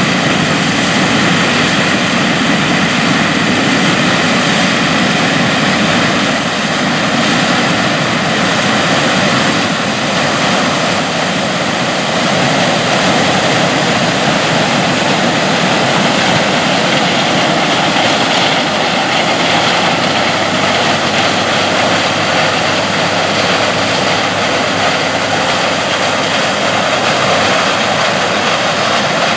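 New Holland CR8090 combine harvester running steadily while harvesting corn: a constant machine drone with no change in pace.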